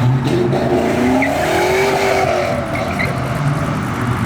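Cammed two-valve V8 exhaust rumbling as the car pulls away, the revs rising and then falling back about a second in.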